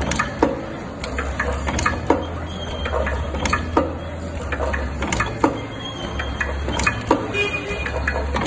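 Automatic tea bagging machine running: a low motor hum with repeated mechanical clicks and clacks from its moving parts, roughly one or two a second.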